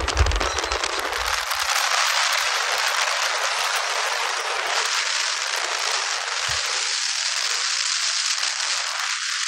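Wind and road noise rushing over the microphone of a car moving at freeway speed: a steady, crackly hiss. A low rumble drops away about a second and a half in.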